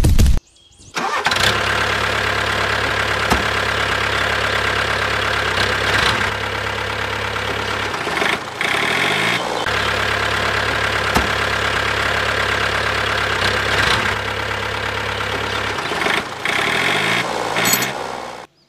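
A motor running with a steady low hum. It starts about a second in, winds down twice with a falling pitch, about eight and sixteen seconds in, and picks up again each time.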